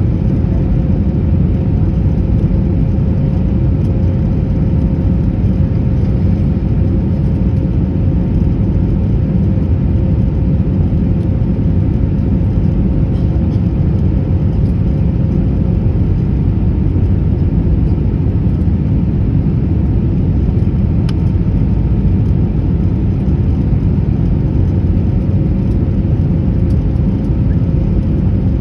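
Airbus A321 cabin noise while taxiing after landing: a steady low rumble with a faint steady hum.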